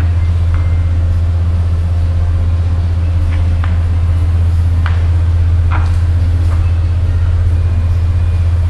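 A loud, steady low hum with a few short, light clicks scattered through it.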